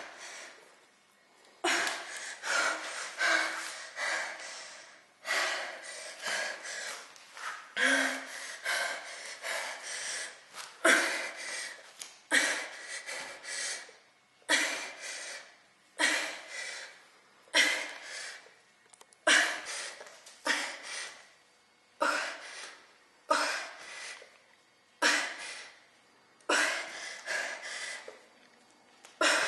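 A woman breathing hard and rhythmically from exertion during side plank leg raises: forceful breaths every second and a half or so, with short pauses between them.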